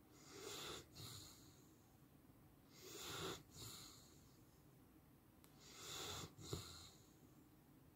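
A sleeping dog breathing slowly and deeply. There are three soft breaths about three seconds apart, each in two parts.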